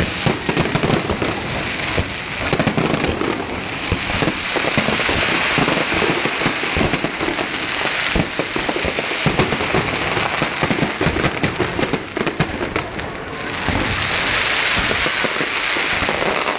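Fireworks going off in a dense barrage: many rapid bangs over a continuous crackling hiss, swelling again near the end.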